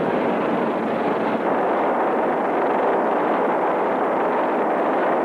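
Steady, loud roar of factory machinery: a dense rushing noise with no clear rhythm or separate strokes.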